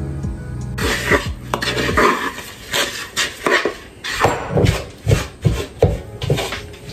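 Wooden spoon stirring and scraping crumbly chocolate chip cookie dough in a bamboo bowl, with a knock or scrape about twice a second. Background music plays under the first two seconds.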